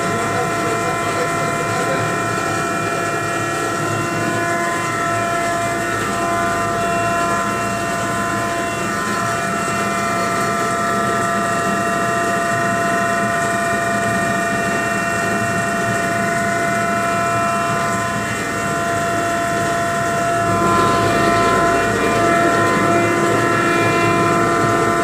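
Pulverizer machine running, its electric motor and grinding chamber making a loud, steady mechanical noise with several steady whining tones. It grows a little louder near the end.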